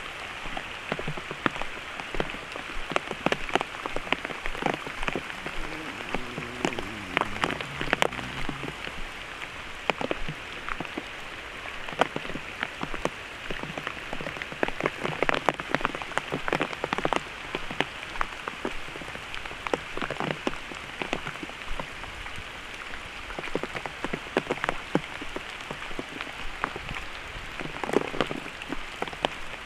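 Steady heavy rain, with large drops landing close by in frequent sharp, irregular taps.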